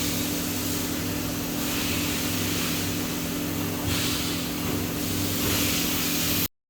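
CNC machine running: a steady hum with a few low tones under a broad hiss that swells a few times. It cuts off suddenly near the end.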